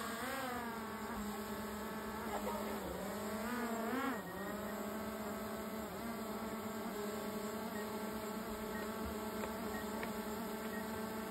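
Small quadcopter drone hovering close by, its propellers giving a steady buzz. The pitch rises and falls at the start and again about four seconds in, then holds steady.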